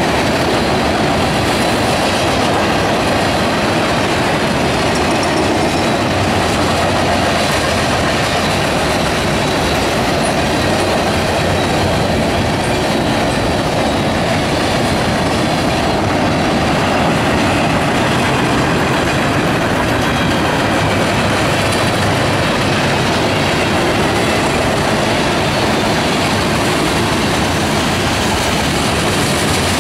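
Freight train's tank cars and covered hoppers rolling past close by: steady, loud noise of steel wheels running on the rails, unbroken throughout.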